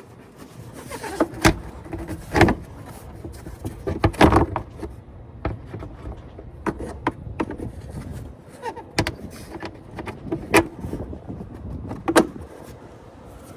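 Irregular knocks and clunks, about half a dozen sharp ones spread through, with quieter rustling and handling noise between them.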